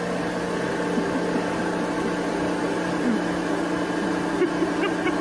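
Steady electric hum of workshop machinery, holding level throughout, with a few faint short sounds in the second half.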